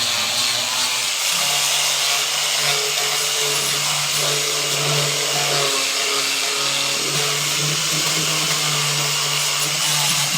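An electric power tool running continuously, a steady hum under a dense hiss of the working tool.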